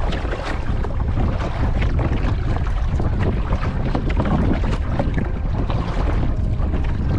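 Wind buffeting the microphone with a heavy, steady rumble, over the crackle of water moving around a kayak on open lake water.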